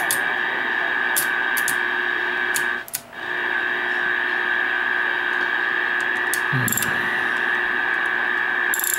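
Dwight D. Eisenhower CB base station's receiver hissing with static from its speaker, with a steady whistle running under the hiss. The noise cuts out briefly about three seconds in, and a few light switch clicks are heard.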